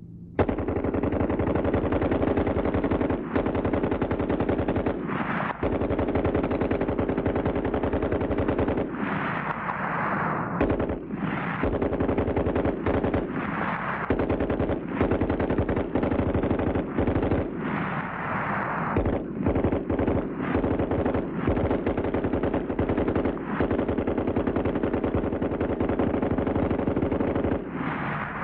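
Water-cooled Browning machine gun firing long strings of rapid automatic fire, broken by a few brief pauses.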